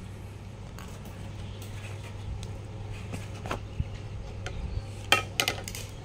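Scattered clicks and light knocks from a cordless grass trimmer's motor head being handled and fitted to its shaft tube, with a quick cluster of clicks near the end. A steady low hum runs underneath.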